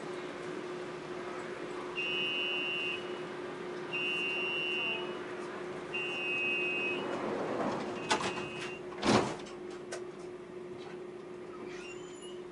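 Door-closing warning of a SkyTrain suspended-monorail car: four high beeps, each about a second long and two seconds apart, then the sliding doors run shut with a click and a loud thump about nine seconds in, over a steady hum. It signals that the car is about to depart.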